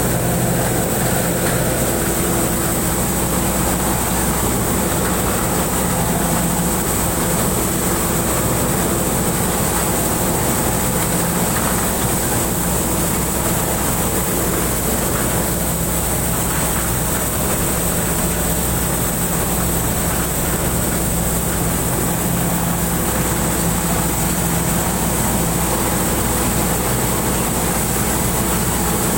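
Pan Charoen rice combine harvester running under load while harvesting: a steady engine drone mixed with the rush of the threshing and cutting machinery, with a steady high whine over it.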